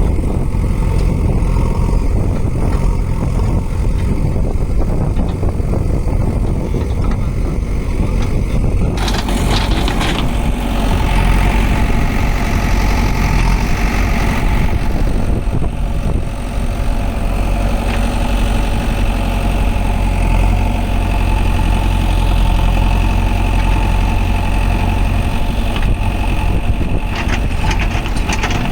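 JCB backhoe loader's diesel engine running steadily at work. About nine seconds in the sound fills out, with steady higher tones added over the low rumble.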